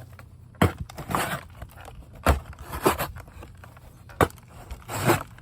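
A Rough Ryder Toothpick pocket knife cutting a corrugated cardboard pizza box: several sharp knocks and a few short rasping cuts through the cardboard.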